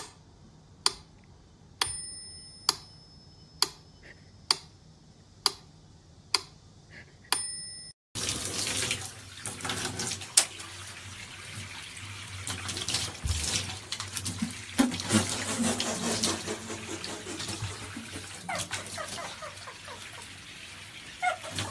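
About eight sharp clicks at roughly one a second, several with a brief bell-like ring. Then, after a sudden change, a bathtub tap runs steadily, water pouring into the tub.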